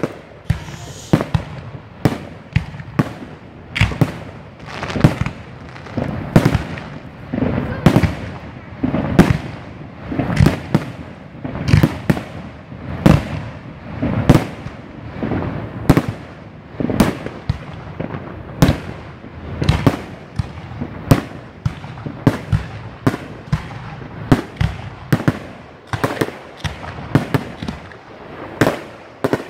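Fireworks display: aerial shells bursting in quick succession, sharp bangs about one to two a second with no letup.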